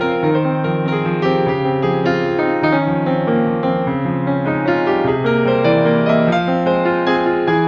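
Background music played on an electric piano or keyboard: a gentle melody over chords, with the notes changing about every half second.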